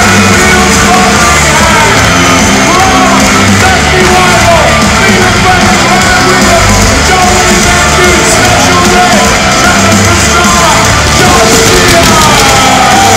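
Loud rock music with a heavy, pulsing bass beat played over an arena sound system, with people yelling and shouting over it; the sound is dense and echoing, as in a large hall.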